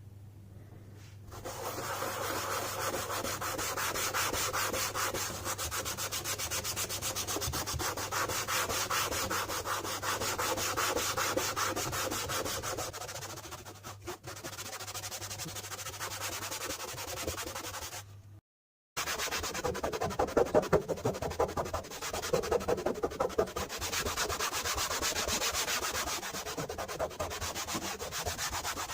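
Rapid, even back-and-forth rubbing strokes, like scrubbing or sanding by hand, starting about a second in. The strokes stop dead for a moment partway through and then carry on.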